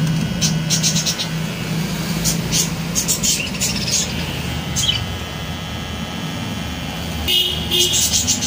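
Wahl Glory cordless electric hair clipper running with a steady buzz as it trims a cat's facial fur, with short scratchy sounds here and there as the blades pass through the fur. The buzz is strongest in the first half.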